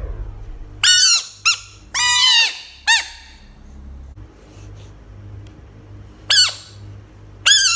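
A series of short, high-pitched squeaks, about six, each arching up and then down in pitch, bunched in the first three seconds and again near the end. A faint low hum sits beneath them.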